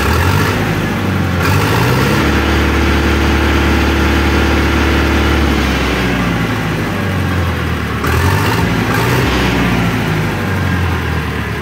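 A new DigiTrac PP51i 60 hp tractor's diesel engine is revved up from idle and held high for a few seconds. It then drops back down and is revved up and down once more.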